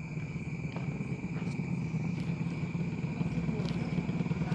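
A small engine running steadily, its low throb slowly growing louder, under a constant high insect drone.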